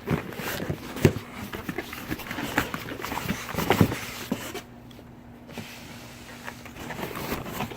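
Cardboard box and packing rustling, scraping and knocking as a car amplifier is worked out of its box, with sharp knocks about a second in and again near four seconds, and a brief lull past the middle.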